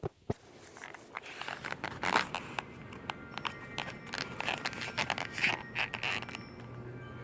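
Irregular clicks and scraping, many short sharp strokes, over a faint steady low hum.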